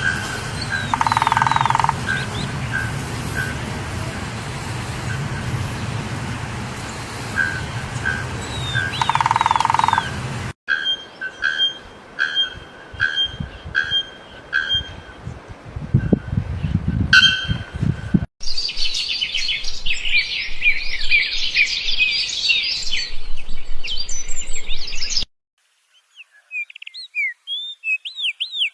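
Birds calling in a string of spliced recordings. First a short call repeats about every half second over a steady low hum and hiss. Then a two-pitched call repeats at a steady pace, followed by a dense chorus of high chirping and, after a brief silence, rapid rising-and-falling chirps.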